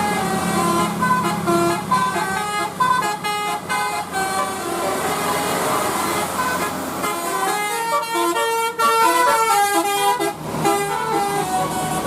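Bus telolet horn, a set of tuned multi-tone air horns, playing a fast melody of short stepped notes. A bus engine runs underneath, and its deep sound drops away about seven seconds in.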